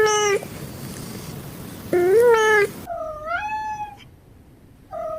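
Domestic cats meowing: a short meow right at the start, a longer meow about two seconds in, then two drawn-out meows that rise in pitch, the last beginning near the end.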